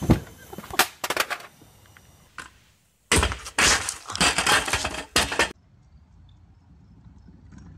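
A few sharp knocks, then a kick scooter and its rider crashing onto stone steps: a run of hard clattering impacts lasting about two seconds that stops abruptly.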